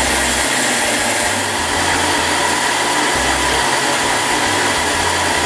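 Thermomix food processor's motor running steadily at speed 5, its blade beating eggs and sugar in the steel bowl: a loud, even whir with a steady whine.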